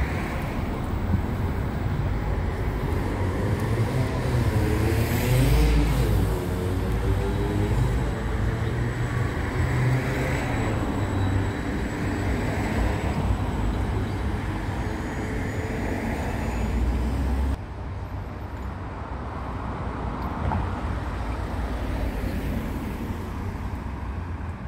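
Bombardier Flexity tram running past at low speed with a steady low rumble and a wavering tone about four to seven seconds in. Near the end it cuts off suddenly, giving way to quieter street traffic.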